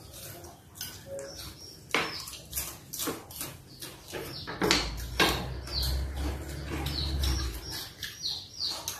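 A small bird chirping over and over in short falling chirps, mixed with the clicks and clatter of dishes and hands at a meal.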